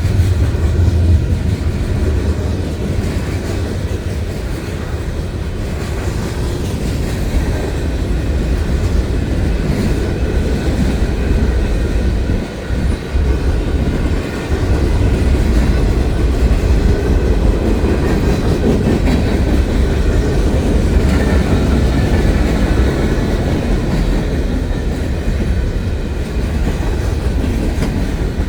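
A train rolling past on the rails, a steady low rumble that holds through the whole passage, dipping briefly twice about halfway.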